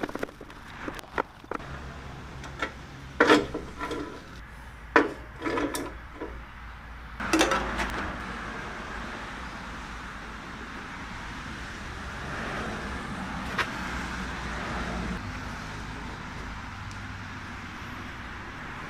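A few sharp knocks and clatters of objects being handled and set down on a cast-iron jointer table, followed by a steady hiss of background noise.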